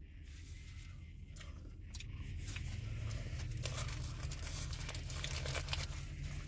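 Paper sandwich wrapper crinkling and rustling as a fast-food chicken sandwich is handled: a string of small crackles that grows busier after about two seconds, over a steady low hum.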